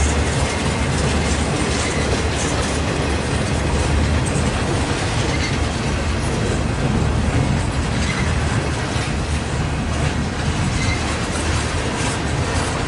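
Empty double-stack intermodal well cars of a freight train rolling past: a steady, continuous rumble of steel wheels on the rails.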